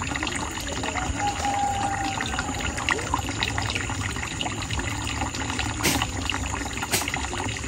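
Water splashing and trickling as raw chicken pieces are rubbed and dipped by hand in a bowl of water, with many small irregular splashes.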